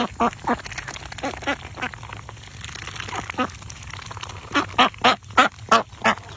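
Domestic ducks quacking repeatedly, with a quick run of about six loud quacks near the end.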